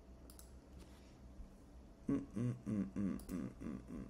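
A few faint clicks, then from about two seconds in a man hums under his breath in short notes that rise and fall, without words.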